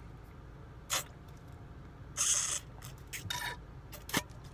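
Drinking from a squeezable plastic sport-cap water bottle: a few short bursts of squeezing, sipping and gulping, the loudest about two seconds in, and a sharp click near the end.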